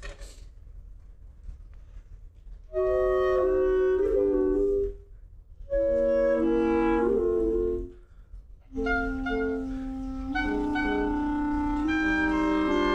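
Wind ensemble with prominent clarinets playing in chords. It comes in about three seconds in with two short phrases separated by brief pauses, then a longer phrase that carries on.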